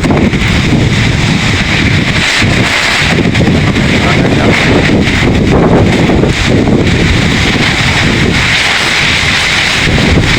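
Strong gusting wind blowing hard across the microphone, loud and rumbling, with the level surging and easing from gust to gust.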